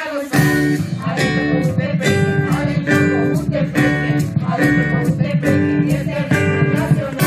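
Traditional Salvadoran folk dance music: strummed acoustic guitars with percussion, playing a steady repeating chord pattern.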